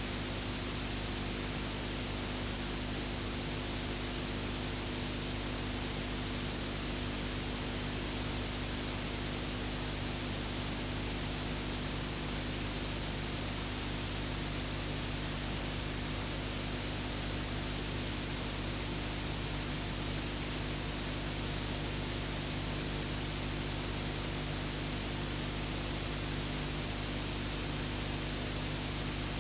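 Steady hiss with a low hum and no other sound: the noise floor of a film transfer with no soundtrack.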